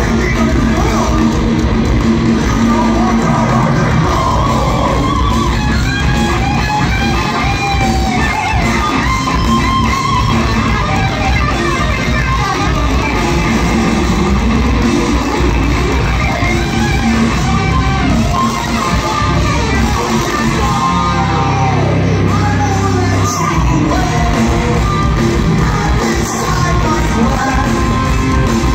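A rock band playing live over a concert PA in a large hall: electric guitars, drums and a singer.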